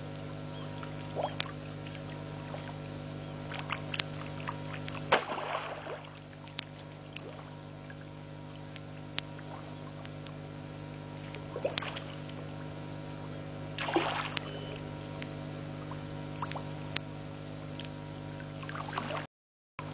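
Night ambience at a pond: a short high-pitched trilled chirp repeating about once a second over a steady electrical hum. Two louder crackling noises come about five and fourteen seconds in.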